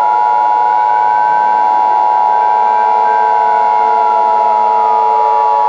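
Emergency Alert System attention signal: a steady two-tone alert tone held unbroken, with a siren slowly rising and then falling beneath it.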